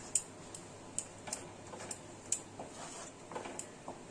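Wooden spatula stirring a thick spice paste in a nonstick kadai: scattered sharp clicks and taps, about two or three a second, unevenly spaced.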